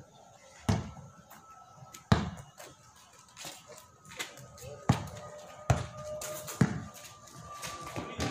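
Basketball bouncing on a concrete street as it is dribbled, about five loud, sharp bounces at uneven intervals with smaller knocks between.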